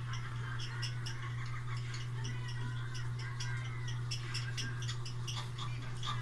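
Siamese cats and kittens giving soft mews, with light irregular clicking, over a steady low hum.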